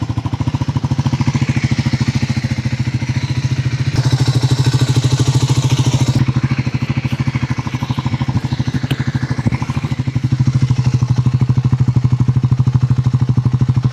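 Triumph Scrambler 400 X's single-cylinder engine idling through its exhaust as a rapid, even train of pulses, moments after a cold start following five days unused. It runs slightly louder for a couple of seconds about four seconds in, and again over the last few seconds.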